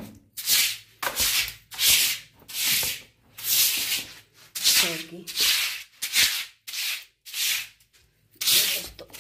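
A surface being scrubbed clean by hand: about a dozen short, rough rubbing strokes in an uneven rhythm.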